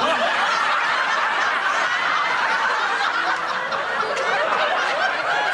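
Studio audience laughing: many people laughing together at once.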